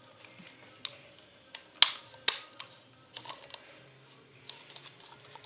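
Light plastic clicks and taps from a toy blender being handled while its stiff dial is turned, with two sharper clacks about two seconds in.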